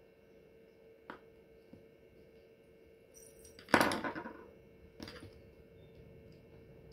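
A hand pressing and rubbing glued fur down onto a sweatshirt: a small click about a second in, a loud brief rustle of fabric and fur just past halfway, and a softer one a second later, over a faint steady hum.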